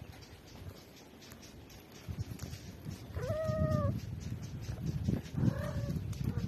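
A calico cat meows twice: a short meow that rises and then holds level about three seconds in, and a fainter one near the end. Low rubbing and bumping noise runs underneath.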